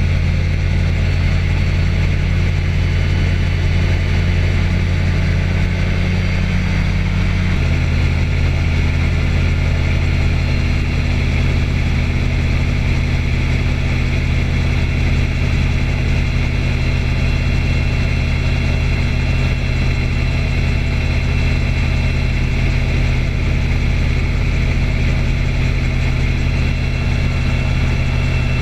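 A light aircraft's engine and propeller running steadily in flight, a loud continuous drone with a deep hum. About seven and a half seconds in, the engine note steps to a slightly different pitch, as with a small change in power.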